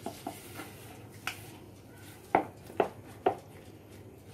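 Silicone spatula working thick cake batter in a bowl: a few soft scrapes and taps against the bowl, the last three, about half a second apart, the loudest.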